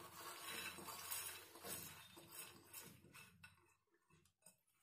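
Faint rustling and light clinks of soaked whole moong beans being scooped by hand out of a ceramic bowl onto a cotton cloth, dying away to near silence about three seconds in.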